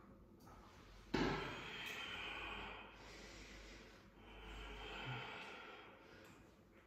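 Quiet breathing close to the microphone during a held yoga stretch: a long breath starting abruptly about a second in, then a second long breath about four seconds in.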